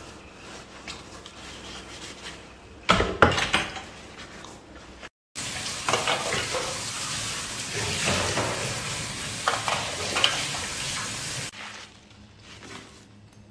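Washing up at a stainless steel sink: dishes and utensils clinking and clattering, with a loud clatter about three seconds in. Then a steady hiss for about six seconds before it drops away.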